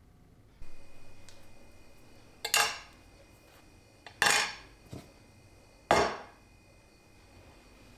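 Small metal tools, scissors and tweezers, set down on a stone slab: three sharp clinks about a second and a half apart, with lighter taps between.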